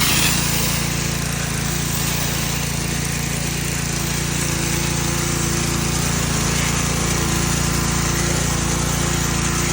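Pressure washer running steadily, its water jets hissing out of a 13-inch undercarriage spray attachment against the underside of a mower deck. The spray swells briefly right at the start, then holds steady.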